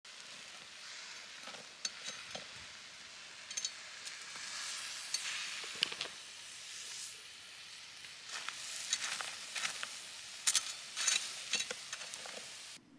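A knife blade cracking and scraping through a baked salt crust on a baking tray: gritty scraping with sharp crunches and clicks in uneven clusters, stopping abruptly near the end.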